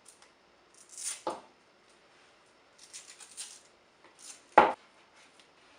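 Handling noises from the shop vacuum's coiled power cord: scattered rustles and light rattly clicks, with one sharp knock about four and a half seconds in.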